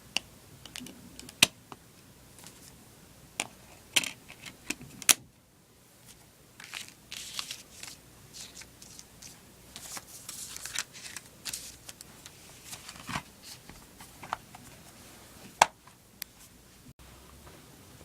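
Sharp clicks and snaps with light rustling as a Blu-ray steelbook case and its discs are handled. The loudest clicks come in the first five seconds and once more near the end.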